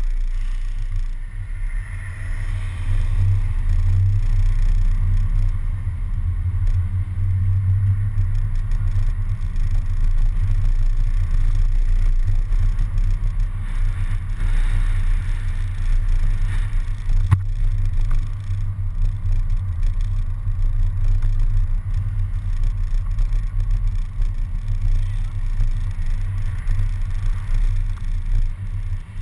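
City bus driving, heard from a camera mounted on the outside front of the bus: a steady low rumble of engine, road and wind noise, rising a little as the bus pulls away at the start. A single sharp click sounds about seventeen seconds in.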